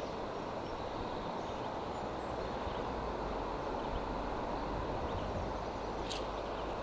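Steady rushing of a river's current flowing past, with a brief high scratchy hiss about six seconds in.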